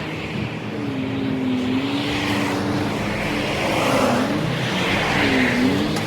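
Road traffic: cars passing close by one after another, their engine and tyre noise swelling and falling away, with a dip in engine pitch as each goes past.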